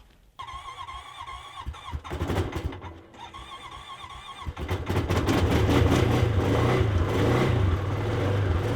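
A vehicle engine cranked by its starter with a wavering whine in two tries, catching about four and a half seconds in and then running with a steady low rumble.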